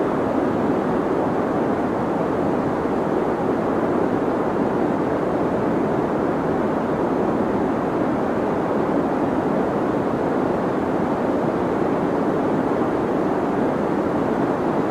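Deep white noise for sleep: a steady, even rushing hiss that sits mostly in the low and middle range, with little bright hiss on top, and does not change.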